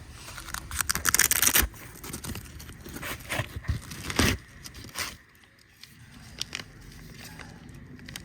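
A plastic tool-kit pouch being opened and handled, crinkling and tearing, with tools clicking and knocking together. The rustling is densest near the start; after that come a few separate clicks and knocks.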